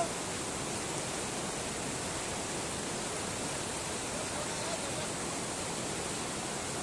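Shallow river rushing over a stony bed: a steady, unbroken rush of water.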